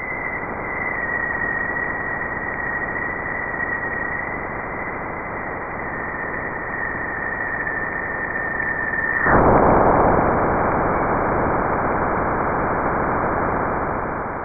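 Sonified plasma-wave data from NASA's Juno spacecraft crossing Jupiter's bow shock. A steady hiss carries a thin high tone; about nine seconds in, the tone cuts out and the hiss jumps suddenly louder and rougher, which marks the crossing of the shock where the solar wind slows and heats against Jupiter's magnetosphere.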